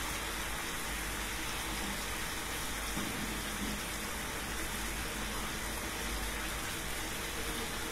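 Chicken pieces and spice paste frying in oil in a kadai, a steady, even sizzle: the masala being fried down before water goes in.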